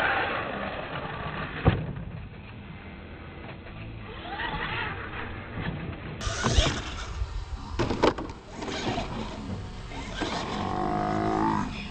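Radio-controlled monster truck's electric motor whining as it revs up and down in pitch, with a sharp knock about two seconds in and another around eight seconds as the truck lands on the dirt.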